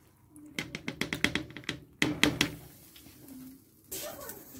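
Boiled rice being tipped from a container into a cooking pot to layer a biryani, with a quick run of clattering taps against the pot, then a scraping begins near the end as the rice is spread over the layer.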